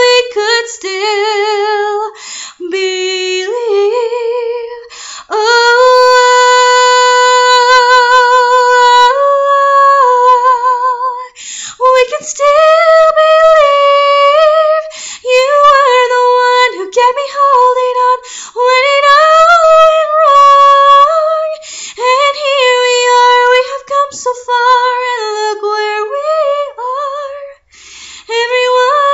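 A woman singing solo a cappella, held notes with vibrato, one of them held for several seconds a few seconds in.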